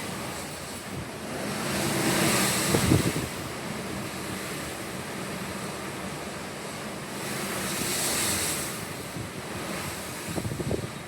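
Pacific Ocean surf: a steady wash of water that swells twice, as a wave breaks and rushes in about two seconds in and again about eight seconds in. Wind buffets the microphone with low rumbles, strongest near the first swell and near the end.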